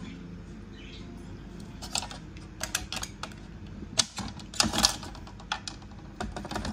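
Irregular light clicks and taps, starting about two seconds in, from soft pastel sticks being handled in their tray.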